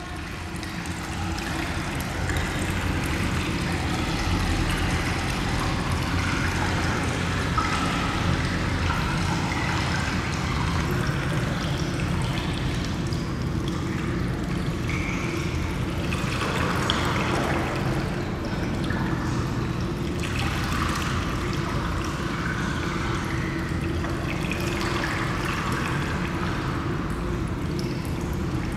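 Water running and trickling steadily in an indoor pool, with a low steady hum underneath.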